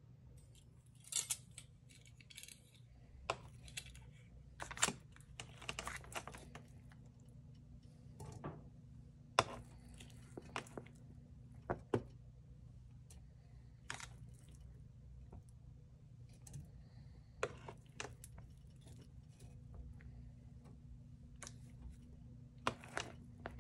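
Tongs clicking and tapping as pieces of cooked chicken are picked from a plastic tray and dropped into an oiled stainless steel skillet: a string of short, sharp taps at irregular intervals over a low steady hum.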